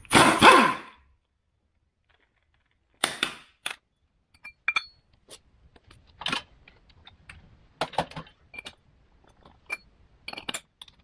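Air impact wrench run in one burst of about a second to spin off the nut holding a power steering pump's pulley. After it come scattered metallic clinks and knocks, some ringing briefly, as the nut, pulley and wrench are handled and set down on the concrete floor.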